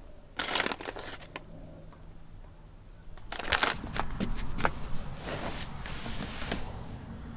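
Crinkling and rustling of food packaging in bursts, a short one about half a second in and a longer one from about three seconds in, mixed with sharp clicks and knocks.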